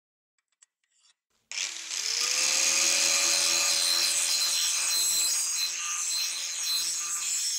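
Angle grinder starting up about a second and a half in, its whine rising quickly as it comes up to speed, then grinding the edge of a steel leaf-spring cleaver blank with an abrasive disc: a steady, loud grinding noise.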